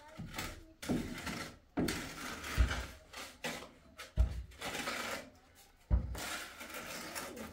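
Trowel scraping and spreading cement plaster around a window frame in repeated rough strokes, each about a second long, with a few sharp knocks of the tool against the frame.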